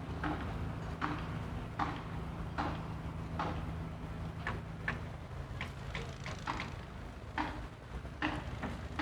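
Footsteps on a paved path, sharp regular steps at an easy walking pace, over a steady low hum of distant traffic.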